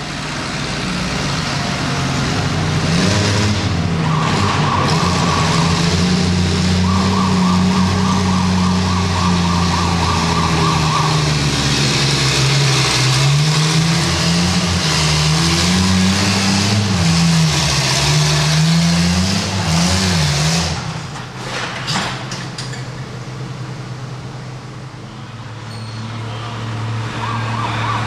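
International Harvester pulling tractor's engine at full throttle under heavy load as it drags a weight-transfer sled, its pitch wavering up and down as it lugs. About twenty seconds in it drops off suddenly as the pull ends, and engine noise rises again near the end.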